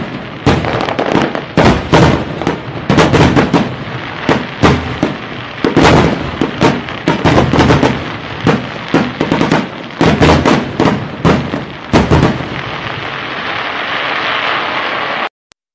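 Fireworks display with aerial shells bursting: many sharp bangs in quick, irregular succession. About twelve seconds in, the bangs stop and a steady hiss carries on until it cuts off suddenly near the end.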